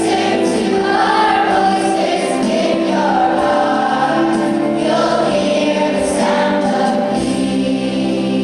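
A choir singing with instrumental backing, holding long sustained notes.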